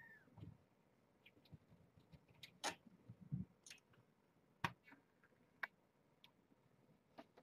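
Near silence broken by faint, scattered clicks and a few soft thumps, irregular and roughly one a second, with a brief high chirp right at the start.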